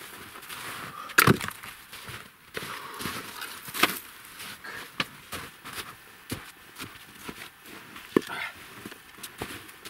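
Handling of sawn wet firewood logs: a few sharp wooden knocks, the loudest about a second in, among footsteps crunching in snow. The cordless chainsaw is not running.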